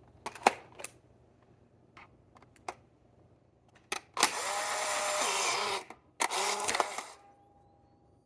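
Old Polaroid instant camera being tested: a few sharp mechanical clicks, then its motor whirs for about a second and a half, stops, and whirs again for under a second. A faint steady tone follows near the end.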